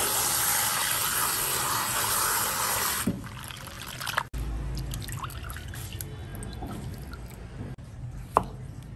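Tap water running hard into a stainless-steel bowl while hands rinse and squeeze shredded vegetable; the tap stops about three seconds in, leaving some splashing in the bowl. Near the end a knife taps once on a plastic cutting board while slicing a cucumber.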